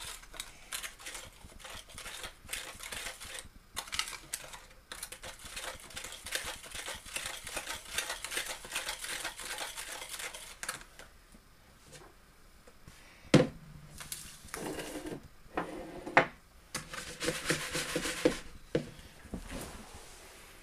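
Metal spoon scraping and stirring in an aluminium foil tray of melted butter and sugar: a busy, scratchy crinkling for about the first half. After that, one sharp knock with a short ring and a few lighter clatters.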